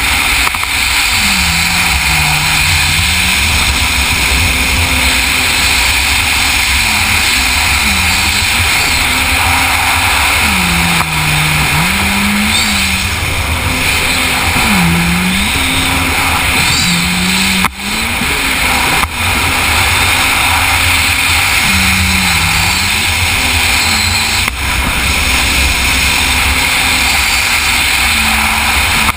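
Yamaha FZR WaveRunner's supercharged four-stroke engine running at race speed, its pitch repeatedly dipping and climbing back every couple of seconds as the throttle comes off and back on. Heavy wind and water rush on a helmet-mounted camera, with a few brief drops in the sound.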